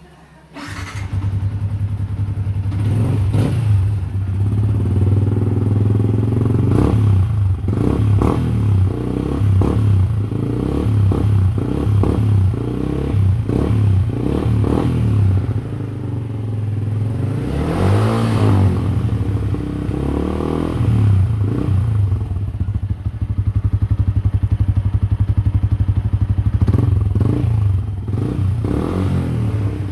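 Yamaha Sniper 150 single-cylinder engine running through an aftermarket silent-pipe exhaust. It starts up about half a second in, then idles with repeated short throttle blips and one bigger rev near the middle.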